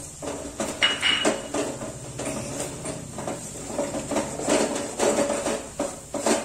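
A spatula scraping and knocking around a white enamel cooking pot as a thick onion-and-spice masala is stirred, in an irregular run of scrapes and taps, with the pot ringing briefly about a second in.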